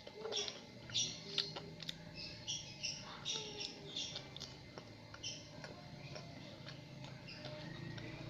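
Close-up eating sounds: chewing and crunching crisp food, with many irregular crackly clicks a few times a second and a faint low hum underneath.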